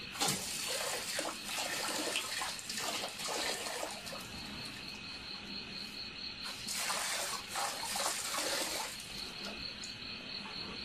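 Water running from an outdoor tap and splashing into a metal bucket, with a dog drinking at the stream. A steady, pulsing high-pitched trill carries on behind.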